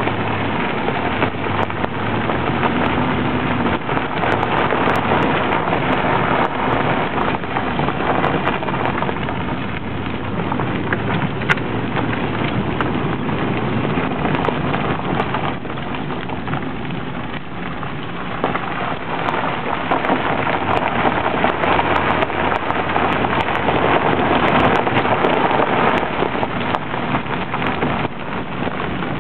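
A vehicle driving over rough ground: a steady rush of wind and tyre noise with a low engine hum underneath.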